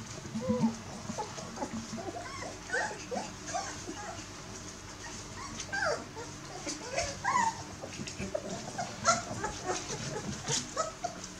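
Litter of bearded collie puppies whimpering and squeaking, many short high cries overlapping and coming and going without pause. A few short clicks are heard in the second half.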